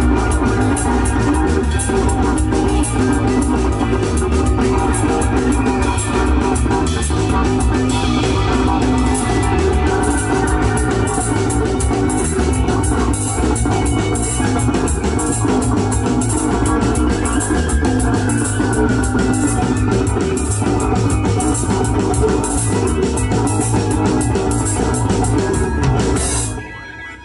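Live rock band playing an instrumental passage on drum kit, guitars and keyboard. The music drops off sharply into a short break near the end.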